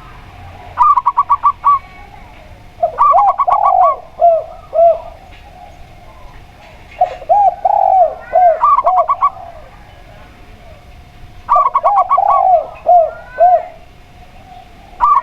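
Zebra dove and spotted dove cooing, about four phrases, each a quick run of staccato notes followed by a few lower, rounded coos, with short pauses between phrases.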